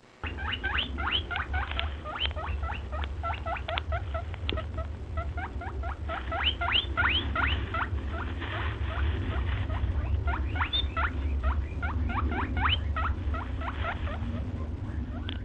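Many short, rising squeaks from several small animals calling over one another, several a second, over a steady low hum.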